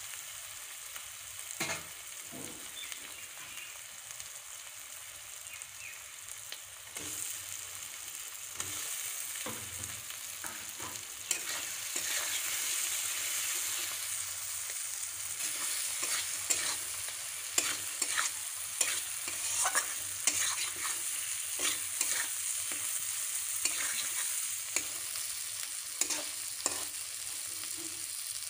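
Masala sizzling in oil in a kadai while a spatula stirs and scrapes the pan, with frequent short scrapes and taps over a steady hiss. The frying gets louder about halfway through.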